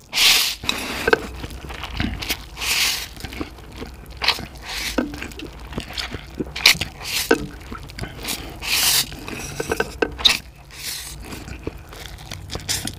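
Close-miked eating of a huge mouthful of instant ramen noodles: several long slurps among wet chewing and smacking mouth sounds.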